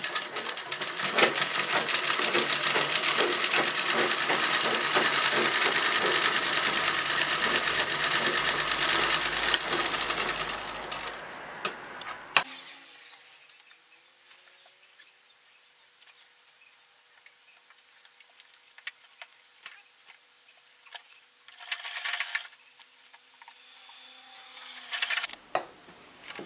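Sewing machine stitching at speed for about eleven seconds, a rapid even run that then stops abruptly. After that come faint scattered clicks and two short rustles of cloth being handled.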